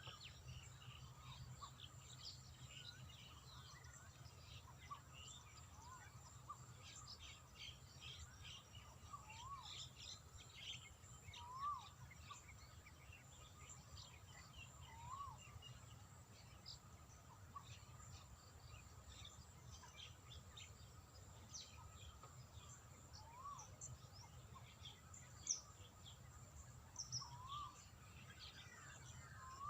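Faint outdoor birdsong: one bird repeats a short rising-and-falling call every few seconds among many quick high chirps from other birds, over a steady thin high-pitched tone.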